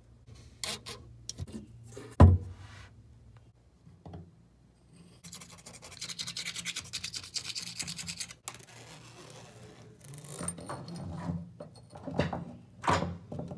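A hand tool scraping old sealant residue off a granite countertop around a faucet hole: about three seconds of rapid, fine scratching in the middle. Sharp knocks of parts and tools on the counter come before it, the loudest about two seconds in, and there is more clatter near the end.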